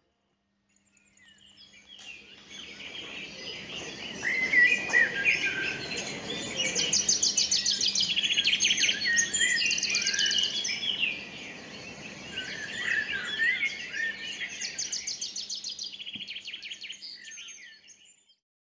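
Birdsong: several birds chirping, with bursts of rapid high trills. It fades in after about a second and fades out near the end, over a faint steady hum.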